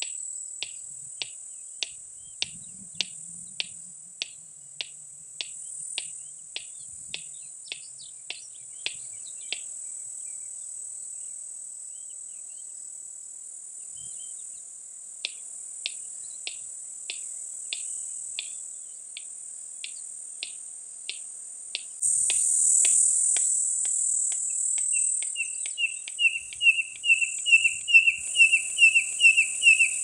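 Male red-crested korhaan calling: a long series of sharp, dry clicks, about two a second, with a pause of several seconds midway, running into a series of whistled notes, about two to three a second, that grow louder near the end. A steady, high-pitched insect drone runs underneath.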